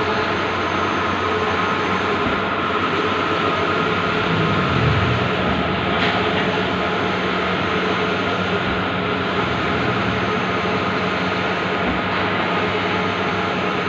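Bluewin large-format outdoor digital printer running steadily, a continuous mechanical hum and rush with a faint regular change about every three seconds as the print carriage sweeps back and forth.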